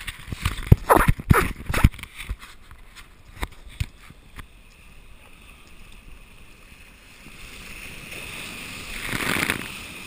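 A run of thumps and knocks in the first two seconds, then the rush of a breaking ocean wave that builds and swells into whitewater surging around a kayak near the end.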